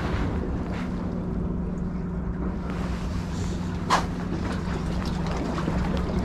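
Steady low engine hum with a constant tone, over wind rumble on the microphone; a single sharp click about four seconds in.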